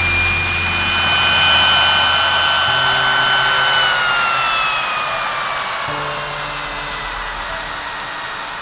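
Rolls-Royce Spey turbofans of a Hawker Siddeley Nimrod running on the ground: a loud rushing roar with a high turbine whine. About halfway through the whine glides down in pitch and the roar slowly eases as the engines wind back from high power.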